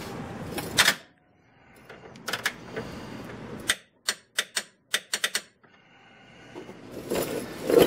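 Hand ratchet clicking on a car's subframe bolts, in short runs of quick clicks broken by pauses, with one sharper click about a second in. Louder handling rustle builds up near the end.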